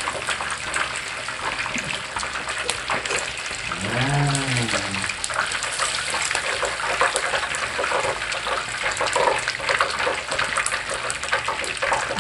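Chicken thighs deep-frying in hot oil in a pan: a steady, dense sizzle full of small crackles. A brief voice is heard about four seconds in.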